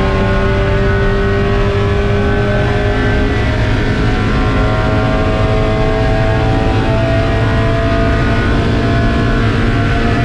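Spec Miata race car's four-cylinder engine running hard under load at racing speed, a loud, steady engine note whose pitch drifts only slowly.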